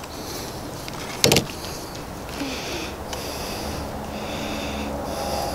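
A metal speed square knocked once against the board, about a second in, then soft handling and sliding as it is pressed against the peel-and-stick tile sheet, over a steady low hum.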